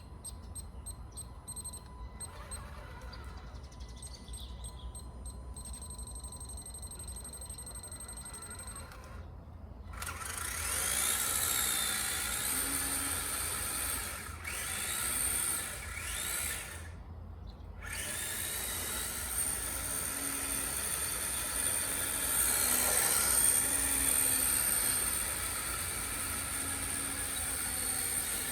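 Electric motor and drivetrain of a Kyosho Blizzard RC snow tractor, converted from nitro to electric, running under throttle with a whine that rises and falls. The whine starts about a third of the way in and cuts out briefly twice. Faint steady high tones come before it.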